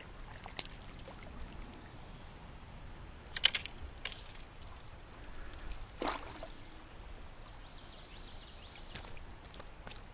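A few short splashes of river water as a hooked smallmouth bass thrashes at the surface and is lifted out by hand, the loudest about three and a half seconds in and another around six seconds in.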